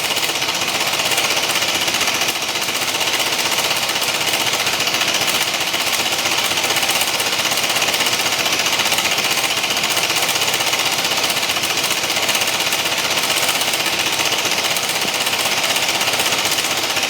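BMW C1 200 scooter's single-cylinder Rotax engine running with a steady, rapid clunking clatter, a noise the owner fears is terminal.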